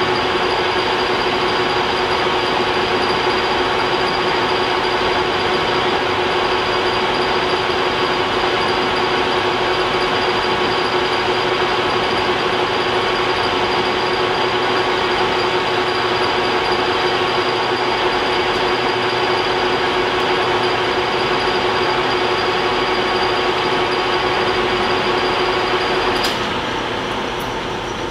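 Metal lathe running with a steady whine from its drive and gearing while the part is bored out. About 26 seconds in there is a click and the whine stops as the lathe is switched off, leaving a quieter running-down sound.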